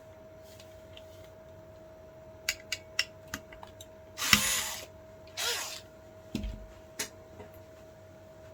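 Small hard parts of an electronic door lock being handled and worked apart: a quick run of sharp clicks, then two short rasping scrapes about a second apart, then a knock and a couple more clicks, over a faint steady whine.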